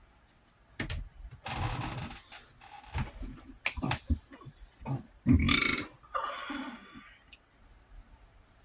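A man burping several times in a row, each burp a separate burst of different length, the loudest about five and a half seconds in.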